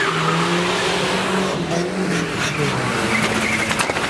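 Modified Volvo 940's engine revving as the car moves off, its note shifting up and down.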